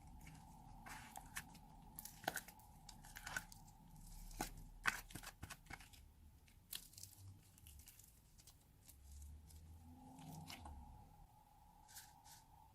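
Slime being stretched and squeezed by hand, giving off irregular sticky crackles and small pops.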